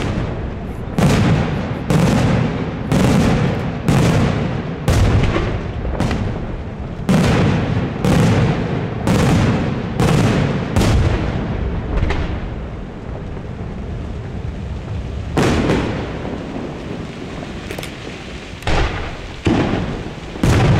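Daytime fireworks display: aerial shells bursting overhead in a run of loud booms about one a second, each with a rolling echo. The bursts thin out about twelve seconds in, then pick up again near the end.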